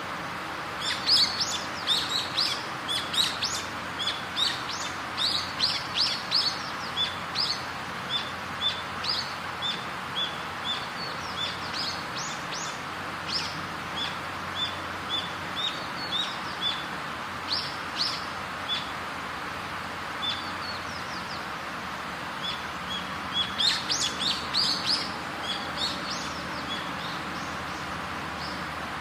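Small songbirds chirping and twittering over a steady background hiss. The chirps come in a busy bout about a second in and another from about 23 seconds in, with scattered single chirps between.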